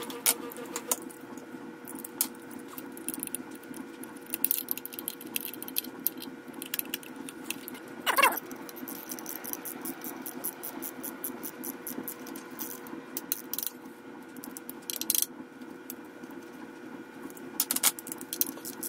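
Ratchet wrench clicking in short runs as the oil filter housing bolts are tightened down, with a short squeak about eight seconds in, over a steady low hum.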